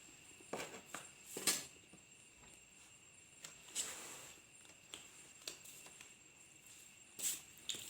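A spoon clinking and scraping on a plate of fried rice with egg, in short irregular strokes a second or two apart. Under it a steady high chirring of night insects, typical of crickets.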